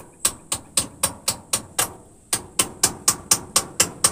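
Rapid hammer blows, about four a second, in two runs with a short break just before two seconds in, as in nailing timber.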